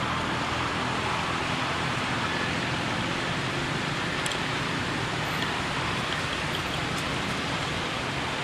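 A steady, even hiss of outdoor background noise, with a couple of faint clicks about four and seven seconds in.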